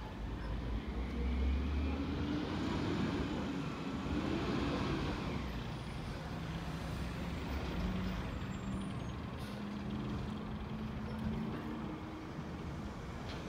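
Engine of a Crane Carrier cab-over garbage truck with a Wayne Curbtender side-loader body, running as the truck drives up the street. It rises and falls in pitch for a few seconds, then settles into a steadier drone.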